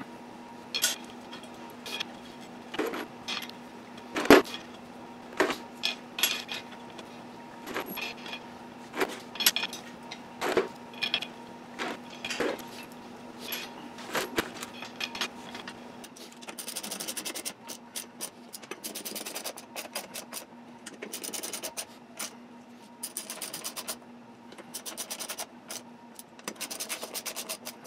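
Beadlock ring bolts clinking as they are handled and threaded in by hand, single metallic clicks about once a second. From about halfway, a ratchet wrench clicks in quick runs with short pauses as the bolts are snugged down.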